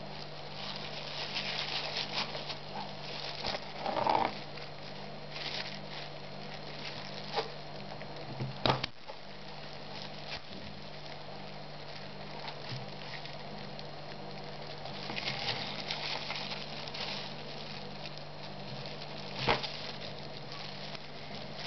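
Disposable plastic gloves crinkling as hands work a wire retaining ring into the groove of a brake caliper piston's rubber dust boot, with a few sharp clicks from the metal ring, the loudest about 9 s and 20 s in. A steady low hum runs underneath.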